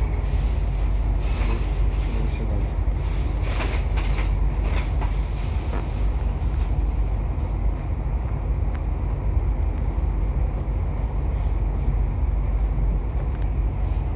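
Passenger train running along the track, heard from inside the carriage: a steady low rumble, with a run of clicks and rattles in the first half.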